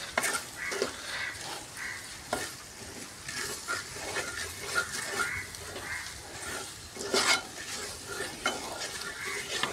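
Sliced onions sizzling in oil in a large metal pan, stirred and turned with a wooden spatula, with irregular scrapes and knocks of the spatula on the pan. The onions are just beginning to soften.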